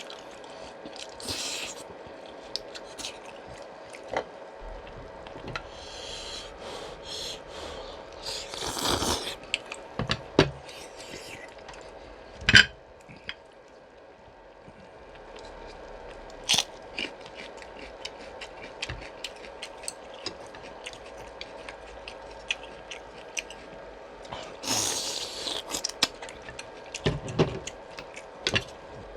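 Chewing and eating sounds from a bowl of pork bone soup, with utensils clicking and scraping against the bowl and one sharp knock a little under halfway through.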